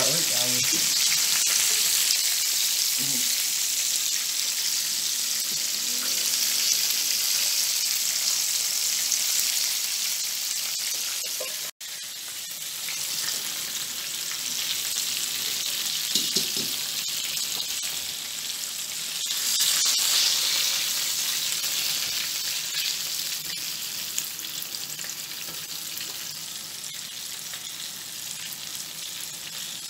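Whole pot fish shallow-frying in hot oil in a pan: a continuous high sizzle. It drops out for an instant about twelve seconds in, swells again around twenty seconds, then eases off slightly.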